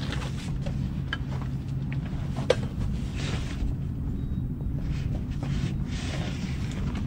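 Bags being set down and shifted on a loaded folding beach cart: light rustling and small knocks, with one sharp knock about two and a half seconds in, over a steady low hum.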